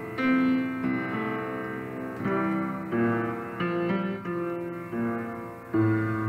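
Kawai piano played slowly in full chords, a new chord struck about every half second to second and left to ring.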